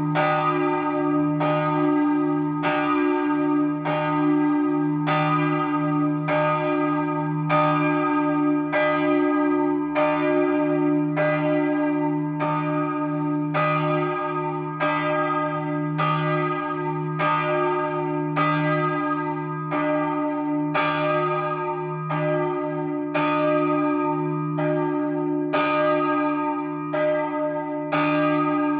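The middle bell of a three-bell peal cast by Capanni in 2009, swung full circle (rung a distesa) for the noon ringing. The clapper strikes about three times every two seconds, each stroke ringing on into the next over a steady hum.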